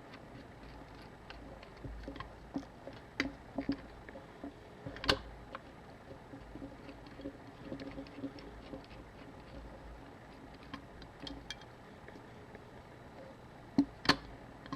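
Small screwdriver work on the screws of a Canon AE-1 camera body: scattered light ticks and scrapes of metal on metal, with a sharper click about five seconds in and two more close together near the end.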